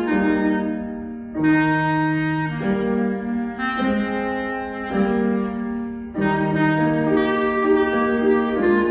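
A solo wind instrument played by a child, with piano accompaniment, performing a melody of held notes, with short breaks between phrases.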